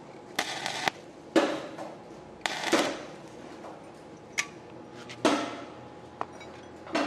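Stick (arc) welder striking short arcs on square steel tube, tack-welding a corner joint: a series of crackling bursts of about half a second each, five or so, with short pauses between.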